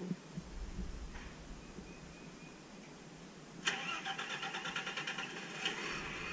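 Natural-gas garbage truck running while stopped: a low engine rumble, then about halfway through a sudden loud mechanical whine with a fast flutter comes in, easing into a steadier high whine near the end.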